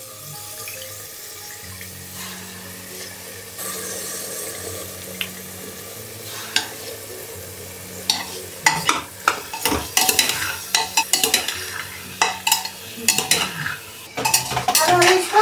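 A steel ladle scoops basmati rice into an aluminium pressure cooker and stirs it into frying masala, with a soft sizzle. From about eight seconds in comes a rapid run of clinks and scrapes of the ladle against the cooker.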